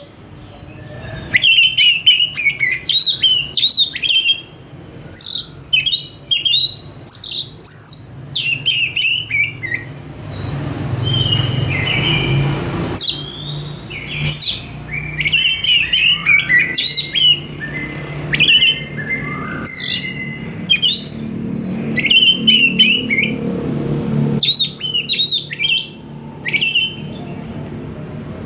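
Oriental magpie-robin singing a stream of quick, varied phrases of chirps and whistled glides. There is a short lull a little before the middle, and a low hum runs underneath for much of the second half.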